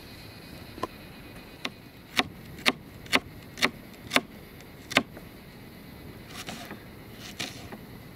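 Knife chopping vegetables on a cutting board: a run of sharp cuts, about two a second, through the middle, with a few single cuts before and after.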